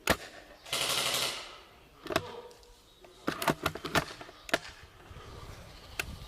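A string of sharp clicks and snaps from airsoft gunfire and rifle handling, including a quick run of clicks about three and a half seconds in, with a short hissing burst about a second in.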